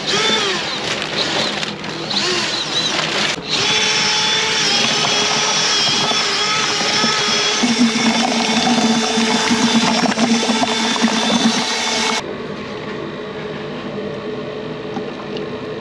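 Electric drill with a paint-stirrer paddle mixing Dexpan expansive grout and water in a plastic bucket, the motor running steadily with its pitch wavering at first. About twelve seconds in the sound cuts to a quieter steady hum.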